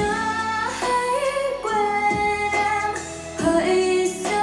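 A Vietnamese pop ballad with a woman singing long held notes over instrumental accompaniment, played back through a wireless speaker under test.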